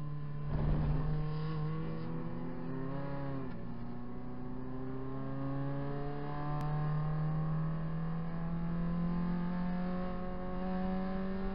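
Proton Saga race car's four-cylinder engine heard from inside the cabin, pulling hard with the revs climbing slowly and steadily through a gear after wavering about three seconds in. A short noisy burst about half a second in is the loudest moment.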